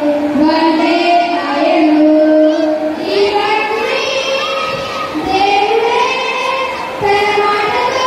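Children singing a song together, one melodic line of held and gliding notes.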